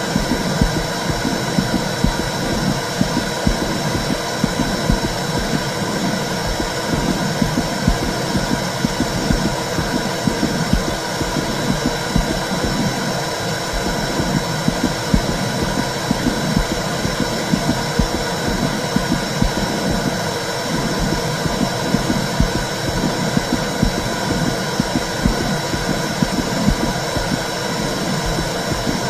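Womb sound: a steady low whooshing with a throbbing heartbeat-like pulse, and a thin steady high tone underneath.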